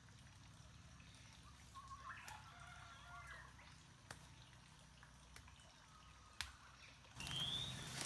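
Near silence: faint outdoor ambience with a few soft clicks. About seven seconds in, the ambience gets louder, and a bird gives two short rising chirps.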